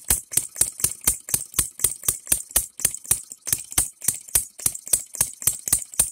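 Engine DIY 'three-stroke' model gasoline engine running: a steady string of sharp firing pops, about four a second. It is a non-compressing engine fired by a 12-volt buzz coil.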